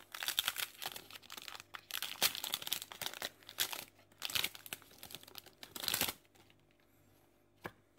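Foil wrapper of a Pokémon Detective Pikachu booster pack being torn open and crinkled in the hands, a dense crackling that stops about six seconds in as the cards come out. A single light click near the end.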